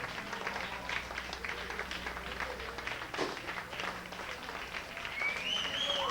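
Club audience applauding at the end of the show, many hands clapping over a crowd din. Near the end, a high tone rises in pitch over it.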